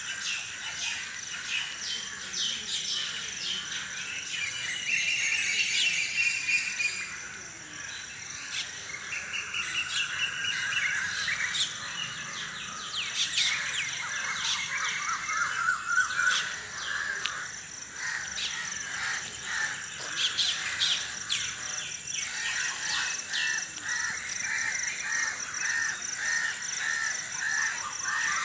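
Early-morning dawn chorus: many birds chirping and calling over one another above a steady high-pitched trill. Near the end one bird repeats a short note about twice a second.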